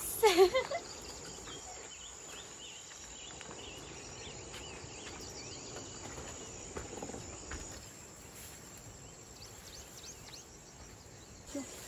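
Insects droning steadily in one high, even tone, with scattered faint chirps over it.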